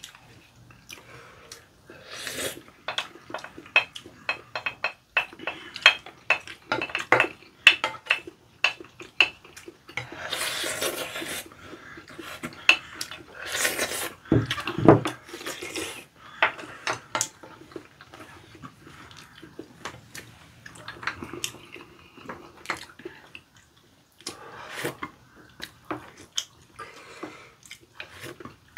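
Spoons clinking and scraping against ceramic bowls during a meal of curry rice and soup, in many quick irregular clicks. Two longer rushing stretches, about ten and fourteen seconds in, fit slurping of soup from the spoon.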